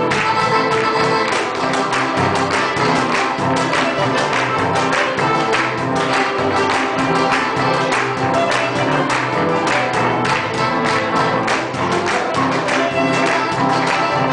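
Andean huaylash dance music playing at a steady, loud level, with held melody notes over a regular beat.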